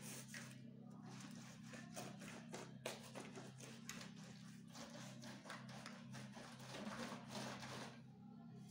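A wooden stick scraping and tapping over wet concrete in a styrofoam block mould, striking off the excess mix in a run of short, quiet strokes.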